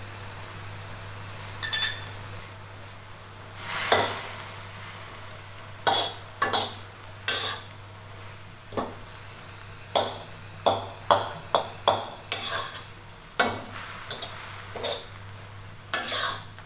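Metal wok spatula scraping and knocking against a wok while stir-frying cabbage: irregular strokes, a dozen or so, with a ringing metallic clink about two seconds in. A steady low hum runs underneath.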